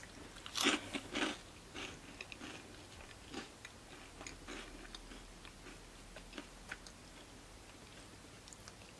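Crunchy ube-filled cracker pillow being bitten and chewed. A few loud crunches come in the first second or so, then quieter chewing crunches that thin out.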